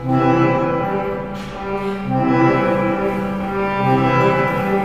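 Music of slow, held low notes that change every second or so, with a louder note coming in at the very start.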